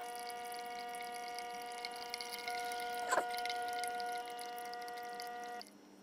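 Oxx Coffeeboxx pod coffee maker brewing into a steel travel mug, played back sped up: a steady whine from the machine with coffee trickling and dripping into the mug, and a single click about three seconds in. The sound stops abruptly shortly before the end.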